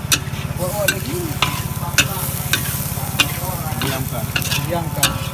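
A metal spatula scrapes and clacks against a hot wok, roughly once a second, while beef and bean sprouts are stir-fried over loud sizzling. The sizzle swells into a hiss about half a second in. A steady low engine-like hum runs underneath.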